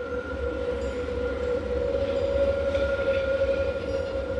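Rhaetian Railway metre-gauge electric train running, a steady whining tone over a low rumble.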